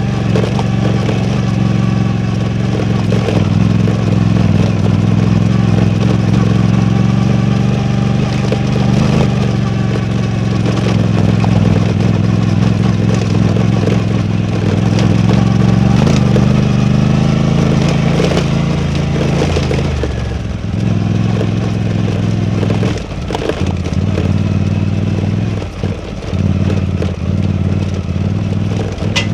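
Suzuki V-Strom 800DE's parallel-twin engine running steadily under throttle while riding. About twenty seconds in the engine note drops and turns uneven, with scattered knocks and clatter over it.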